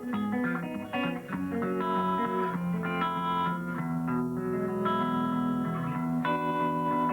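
Guitar played in the thumbpicking style: the thumb keeps a run of low bass notes going while the fingers pick a melody above them.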